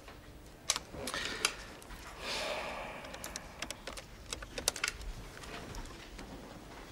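Desk telephone being hung up and a new number dialled: a scatter of sharp plastic clicks, with a short rustle about two seconds in.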